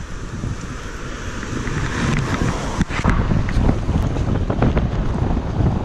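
Wind buffeting the microphone of a camera riding on a moving recumbent trike: a steady rumbling rush that grows louder about two seconds in, with a few sharp clicks and knocks.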